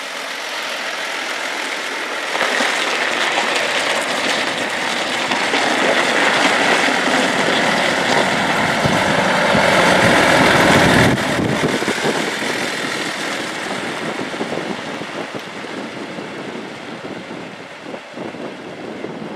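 Case 1570 Agri-King tractor's turbocharged six-cylinder diesel running as the tractor drives past, growing louder to a peak about eleven seconds in, then fading as it pulls away.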